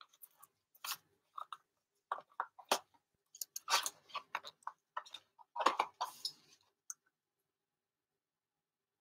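Handling noises on a desk: irregular clicks, taps and rustles of objects being moved by hand. They stop about seven seconds in.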